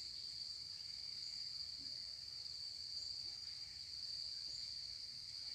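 Insects singing in one steady, unbroken high-pitched drone, heard faintly.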